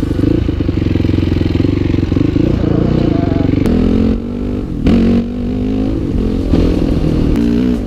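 Dirt bike engine running under way as the bike is ridden, its pitch shifting as the throttle and gears change. It drops off briefly about four seconds in, then comes back on.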